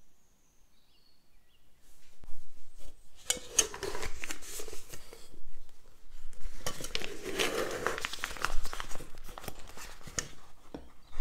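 Plastic piping bag rustling and crinkling as it is handled, fitted with a metal piping tip and folded open over a glass, with many small clicks and knocks. It starts about two seconds in.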